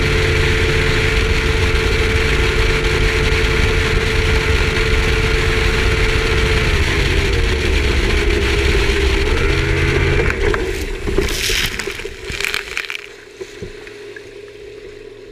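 Bass boat running fast on plane: outboard engine drone under heavy wind and rushing water. About ten seconds in, the engine drops off and a few bursts of splashing spray follow. A quieter, low engine hum is left.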